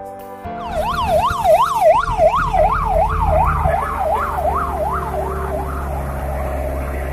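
An emergency siren in a fast yelp, its pitch rising and falling two to three times a second, fading out after about five seconds, over a low engine rumble.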